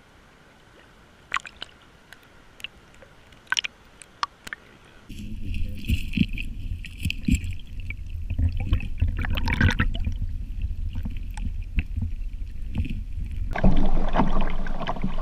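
A few faint clicks and taps, then from about five seconds in water sloshing and gurgling around a small boat, with a heavy low rumble. Near the end a louder, fuller sound comes in, most likely the background music.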